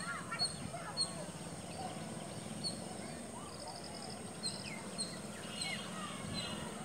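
Small birds chirping, short high calls repeated again and again with a few quick trills, over a steady low background hum.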